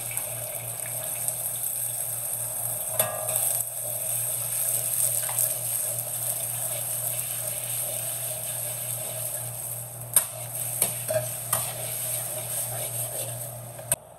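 Beaten eggs sizzling in hot oil in a steel wok while a metal wok spatula stirs and breaks them up, with a few sharp clinks of the spatula against the wok, the loudest about ten seconds in.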